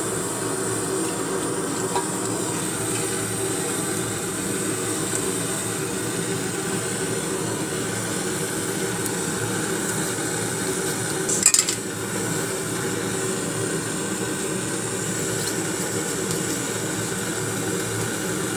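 Egg batter with gram flour being mixed in a bowl, over a steady background hum, with a single sharp clink about eleven and a half seconds in.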